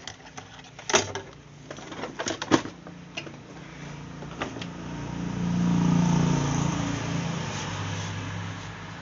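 Sharp clicks and knocks of the air fryer's plastic top housing being handled and turned over, loudest about one second and two and a half seconds in. Then a low hum swells up over a few seconds and slowly fades.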